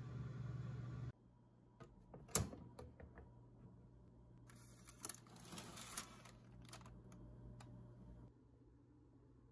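A countertop convection oven's fan hums steadily and is cut off about a second in. Then the oven door is opened with a sharp click and the baking tray lined with parchment paper is slid out on its rack, with scraping, paper rustling and a few light clicks.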